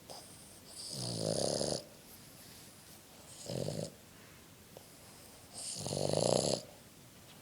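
Sleeping dog snoring loudly: three snores about two and a half seconds apart, the first and last long, the middle one short.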